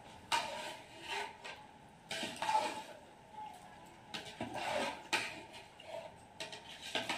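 A long-handled ladle stirring and scraping through mutton pieces and yogurt in a large aluminium pot, a stage in mixing a biryani masala. It comes as about five uneven wet scraping strokes, each under a second long.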